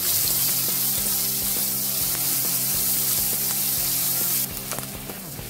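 Chopped onions sizzling loudly in hot oil in a nonstick kadhai as they are stirred with a wooden spatula; the sizzle drops off abruptly about four and a half seconds in. Background music with steady tones plays underneath.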